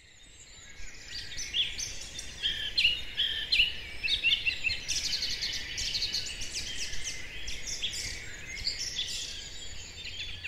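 A chorus of several wild birds singing and chirping, many short high calls and trills overlapping, fading in over the first second or so.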